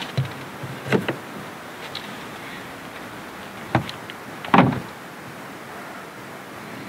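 Hyundai Tucson's tailgate being shut from inside the car. A few light knocks and bumps in the first second as someone moves about in the cargo area, then a sharp click and, at about four and a half seconds, the loudest thud as the hatch closes.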